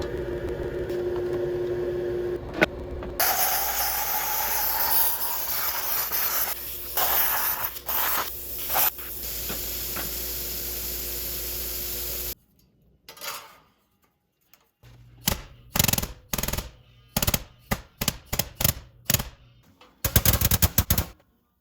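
A power tool starts about three seconds in, its pitch rising as it spins up. It runs loud and noisy for about nine seconds, then cuts off. After a short silence comes a string of sharp metal knocks and clinks.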